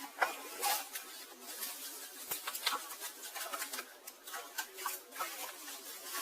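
Irregular rustling and light clicks and taps from cookware and its packaging being handled during unboxing.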